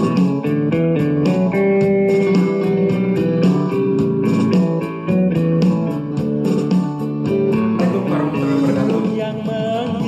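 Guitar-led instrumental intro music with a quick run of plucked notes over a steady bass line.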